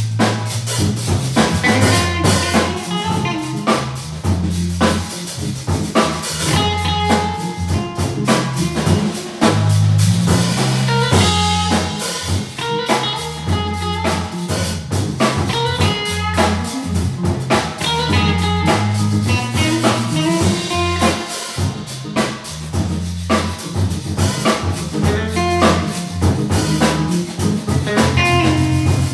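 Organ trio playing an instrumental blues: Hammond organ with a stepping bass line, electric guitar and drum kit.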